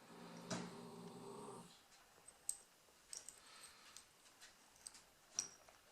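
Faint, sharp small clicks of a rim lock cylinder's parts being handled as the plug is worked out with the key and a plug follower, several spaced over a few seconds. A short steady low tone sounds for under two seconds at the start.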